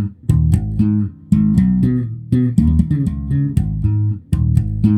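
Electric bass guitar playing a plucked line through an amp, dry, with the compressor's settings switched out. The notes come in short phrases with brief gaps, and the playing stops just before the end.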